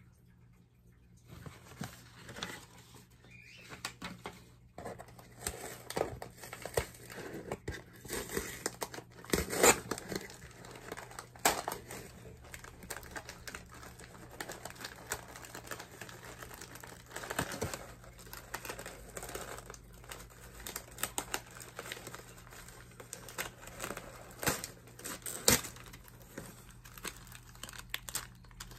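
Paper packing and a cardboard shipping box rustling and crinkling as hands dig through the box and lift out its contents, with sharp crackles here and there. It starts about a second in and is loudest about ten seconds in.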